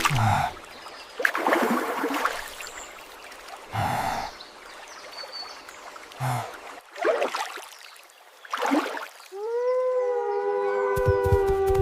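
Several swells of breathy whooshing noise, then a wolf howl near the end that rises in pitch and is held long and steady, sinking slightly.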